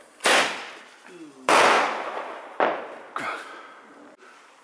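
Bad Boy Colour Bomb firework shot tubes firing: four sharp bangs. The second, about a second and a half in, is the loudest, and the last two are fainter. Each bang echoes and dies away over about a second.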